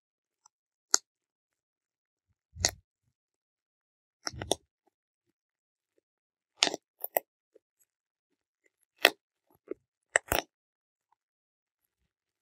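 Air bubbles in a sheet of plastic bubble wrap popping one at a time as fingers squeeze them: about ten short, sharp pops, unevenly spaced a second or two apart and sometimes two in quick succession.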